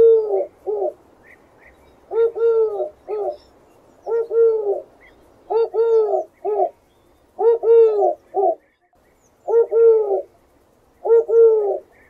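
Eurasian collared dove cooing: a three-note coo, short–long–short, repeated about seven times at intervals of roughly one and a half to two seconds.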